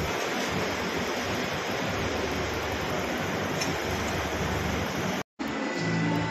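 Steady rushing background noise of a large exhibition hall, with no distinct events. It cuts out completely for a split second about five seconds in, then carries on.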